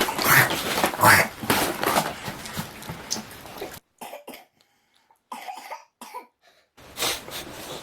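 A person coughing several times in loud, rough bursts, then a stretch of near silence broken by faint small sounds.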